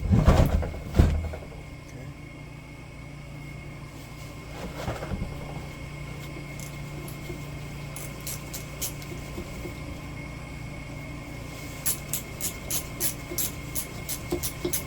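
Metal parts of a skid steer's hydraulic drive motor clanking together as it is handled apart, over a steady low hum. Near the end comes a run of light, quick metallic clicks, about three a second.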